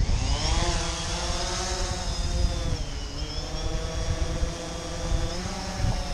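DJI Phantom quadcopter's propellers whirring up in pitch as it lifts off, then buzzing steadily as it climbs and hovers. The pitch dips about three seconds in and rises again near the end, over a low rumble.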